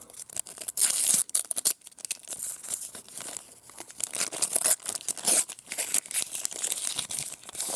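Packaging being torn and crinkled by hand: irregular ripping and crackling, loudest about a second in and again around five seconds in, as a wrapped prize inside a trading-card pack is opened.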